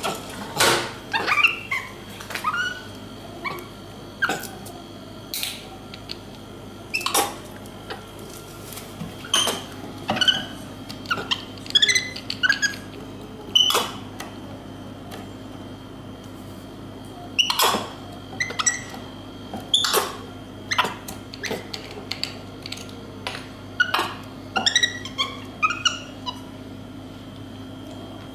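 A capuchin monkey's short, squeaky chirps that bend in pitch, mixed with clicks and knocks as it handles and twists open a plastic drink bottle on a tabletop. A steady hum runs underneath.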